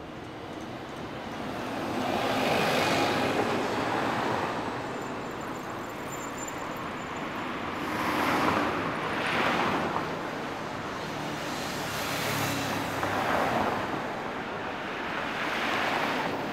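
Heavy concrete mixer truck pulling out and moving slowly. Its engine and road noise swell and fade several times as it manoeuvres.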